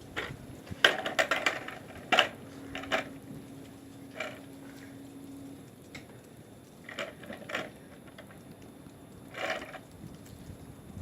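Irregular clicks and clattering knocks. The loudest is a quick run about a second in, followed by a sharp knock a moment later, with more scattered clicks after that. A faint steady hum sounds for a few seconds in the middle.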